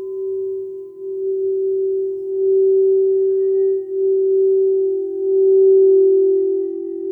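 Quartz crystal singing bowls ringing with a sustained low pure tone and a fainter higher tone above it, the sound swelling and dipping in loudness every second or two.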